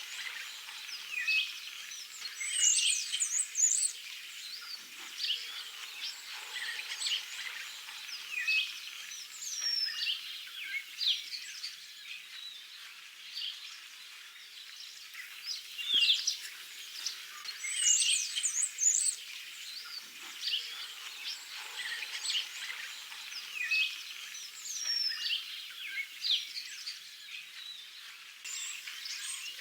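Songbirds singing: a steady chorus of short, high chirps and quick whistled glides from several birds, overlapping throughout.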